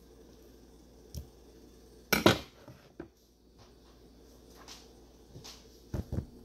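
A kitchen knife set down on a wooden cutting board with a sharp clatter about two seconds in, among a few lighter knocks. Near the end come two dull thumps as a watermelon half is handled on the board.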